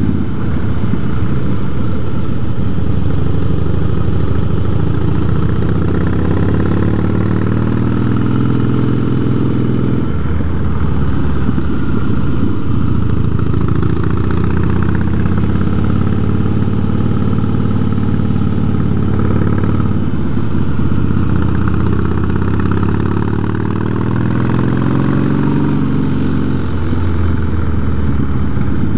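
Harley-Davidson V-twin motorcycle engine running under way, its pitch rising and falling with the throttle; the note drops out and picks up again about ten seconds in and again about twenty seconds in, as on gear changes.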